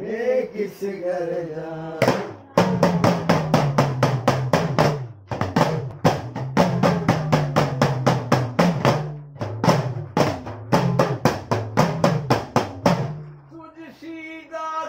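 Devotional folk music: a drum is struck in fast, regular strokes, about three or four a second, over a low tone that steps up and down in pitch, with two short breaks. Male chanting comes just before the drumming and again near the end.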